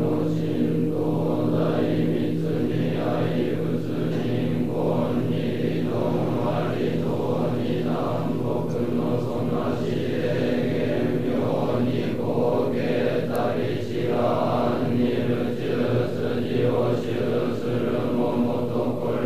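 A large assembly of Sōtō Zen monks chanting a sutra in unison, many voices held on one steady pitch with an even syllable pulse.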